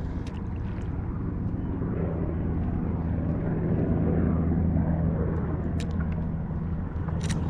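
A steady low engine drone with a constant pitch, with a few faint clicks near the end.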